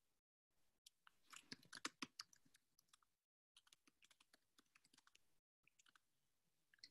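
Faint, irregular clicks of typing on a computer keyboard heard over a video call, with a short flurry of louder keystrokes about a second or two in. The clicking is broken by a few brief moments of total silence.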